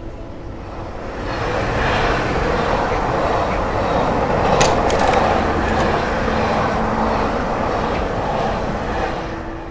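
Train running on its tracks: a steady rushing rumble that swells in about a second in and fades near the end, with a few sharp clicks around the middle.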